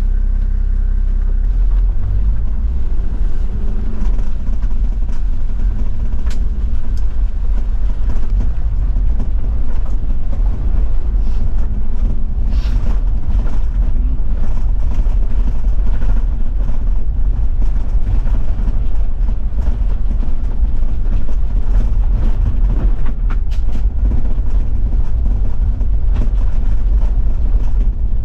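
Diesel Toyota Land Cruiser 70 driving on an unpaved gravel forest road: steady deep engine and tyre rumble, with scattered short clicks and knocks from stones and the rough surface.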